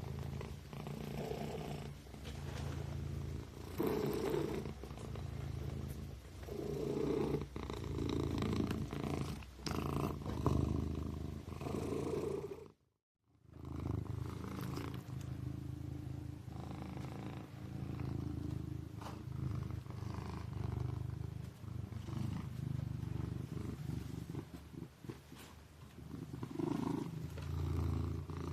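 Kitten purring steadily, the purr swelling and fading about every two seconds. It breaks off into silence for under a second near the middle.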